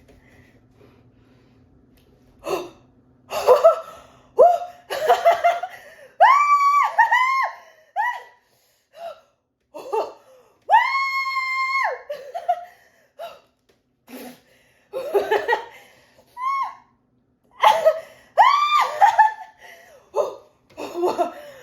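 A woman laughing and shrieking in bursts, with high-pitched screams and one long held scream about eleven seconds in.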